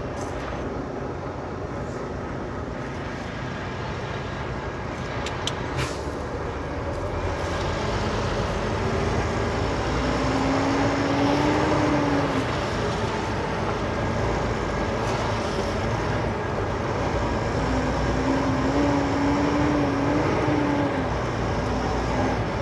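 Semi truck's diesel engine running at low speed, heard from inside the cab. Its note rises and falls as it pulls, about halfway through and again near the end.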